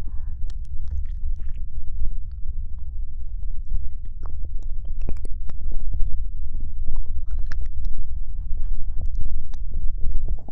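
Wet mouth clicks and smacks close to the microphone, many short crisp pops over a steady low rumble.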